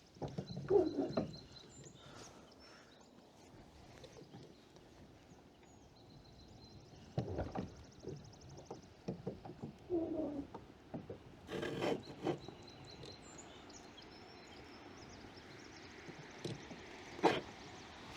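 Scattered knocks and clunks against a kayak hull, with short runs of fast clicking, as the anchor is reeled up.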